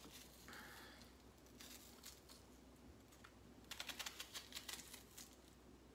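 Faint, crisp cutting of a raw onion held in the hand, the knife blade working through it, with a quick run of small clicks about four seconds in.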